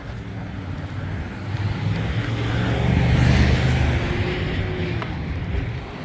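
A road vehicle driving past: engine hum and tyre noise swell to a peak about halfway through, then fade away.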